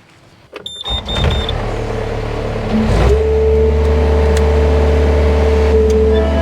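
Three short high warning beeps, then a skid steer loader's diesel engine starting about a second in. It picks up speed about three seconds in and settles into a steady run.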